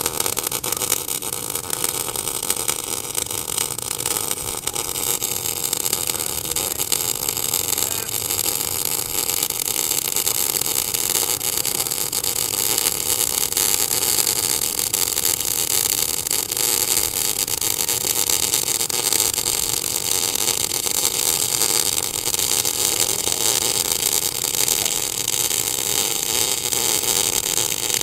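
TIG welding arc from a Tenya TIG 250PC inverter welder running at about 245 amps on a 12 mm plate: a steady, unbroken hiss and crackle.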